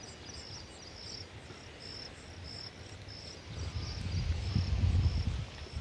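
A cricket chirping steadily, short high chirps about twice a second. About three and a half seconds in, a louder, uneven low rumble sets in over it.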